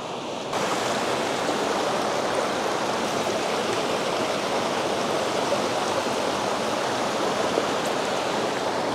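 River water rushing steadily, louder from about half a second in.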